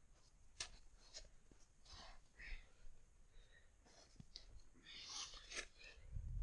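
Soft, irregular crunches and scrapes of boots stepping down a steep slope of old, firm snow, with a dull thump near the end.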